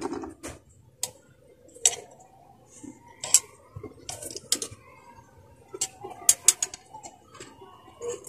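Handling noise from the sections of a hollow carbon fishing rod (Fenwick HMX 562): a string of sharp, irregular clicks and light knocks as the pieces are turned over and tapped in the hands.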